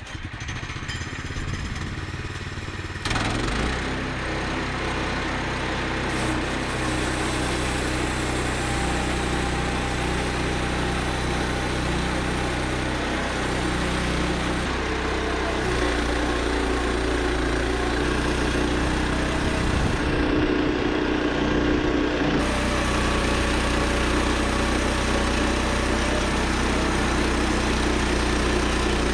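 Woodland Mills HM122 bandsaw sawmill's gas engine running and its band blade cutting through an ash log. The engine picks up about three seconds in, then runs steadily under load.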